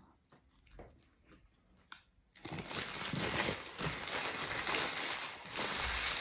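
Paper fast-food wrapper crinkling and rustling as a wrap is unwrapped by hand, starting about two seconds in and going on without a break.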